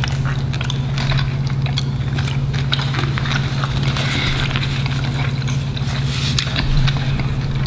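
Chewing and mouth clicks of people eating a burger and fried food, many small wet clicks in an uneven rhythm, over a steady low hum.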